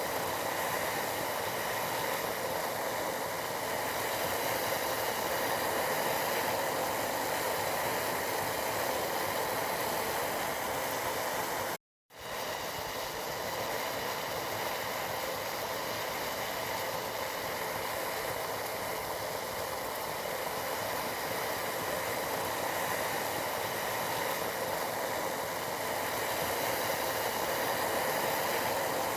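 Tea boiling, a steady bubbling hiss that cuts out for a split second about twelve seconds in before carrying on.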